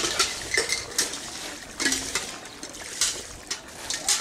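Pieces of fried rohu fish dropped one at a time into a wok of simmering curry broth, each landing with a splash, about six times at uneven intervals over a steady bubbling hiss.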